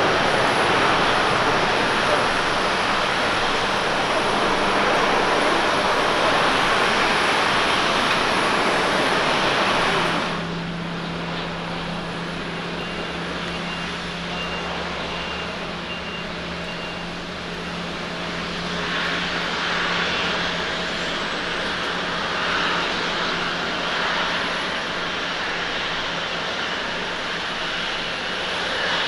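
Japan Airlines Boeing 777-200ER jet engines running loud during the landing rollout on a wet runway. About ten seconds in, the sound cuts to the quieter, steady run of the engines at taxi power, a low hum with a faint high whine.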